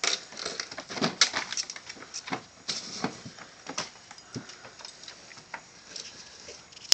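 Catahoula bulldog puppies' claws scrabbling and scratching on a plastic kiddie pool and corrugated tubing: irregular small clicks and scrapes.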